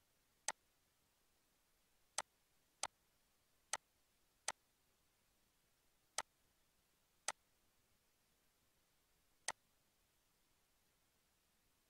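Computer mouse button clicking: eight sharp, single clicks at irregular intervals, two of them close together a little after two seconds in, over near silence.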